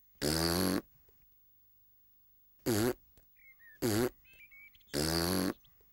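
Cartoon piglet hiccupping, four loud 'hic' sounds at uneven gaps, the first and last a little longer than the two in the middle.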